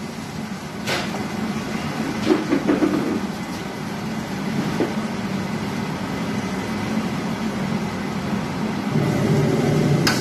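Commercial gas wok burner running with a steady low roar. A metal ladle knocks against the wok a few times, about a second in and again around two and a half seconds.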